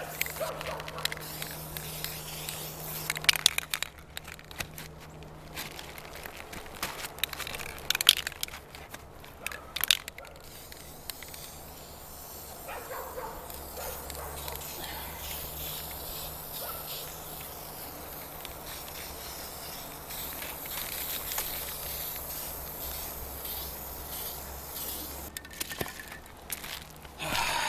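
Aerosol spray paint hissing in short sprays, with a few sharp clicks and scrapes of handling against the shingles.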